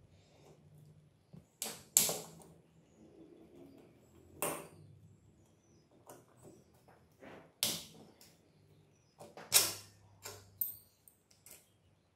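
Sharp metallic clinks and taps, about half a dozen at irregular intervals, some with a brief ring, as bolts and loose parts are handled on a stripped three-wheeler engine's metal crankcase. A faint low hum runs underneath.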